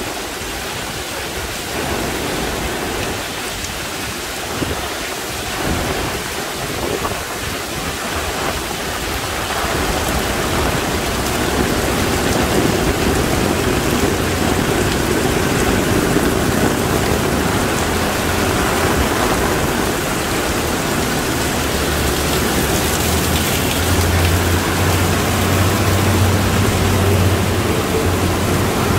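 Torrential monsoon rain pouring down, a dense steady hiss of water that grows louder about a third of the way in. A low steady hum joins in the last few seconds.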